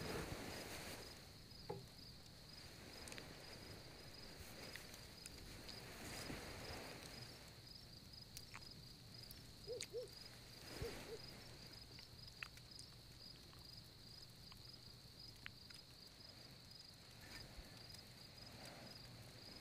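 Faint night ambience: crickets chirping steadily, with a few soft clicks and brief low tones about halfway through.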